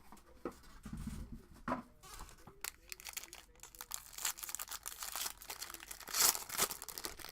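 Trading-card packs or their box wrapping being torn open and crinkled by hand: a run of irregular crackles and rustles, with the loudest tear about six seconds in.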